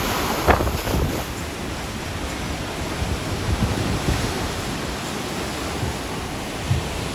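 Artificial waves breaking and whitewater churning in a Wavegarden surf pool, a steady rushing wash, with wind buffeting the microphone in low, irregular gusts.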